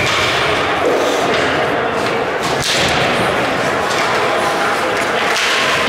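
Ice hockey play on the rink: a steady wash of skate and stick noise, with one sharp knock, a stick, puck or body hitting something, about two and a half seconds in, over spectators' voices.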